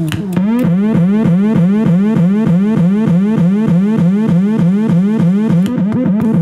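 Homemade 555-timer dub siren synth sounding a fast repeating siren, each whoop sliding up in pitch several times a second, heard through a small portable speaker. It gets louder about half a second in, just after a few sharp clicks.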